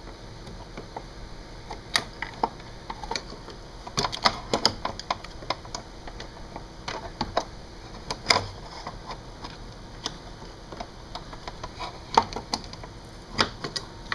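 A metal hand tool picking and scraping around the edge of a body plug stuck in with seam sealer, working to break it free: irregular sharp clicks and short scratches, a few louder taps.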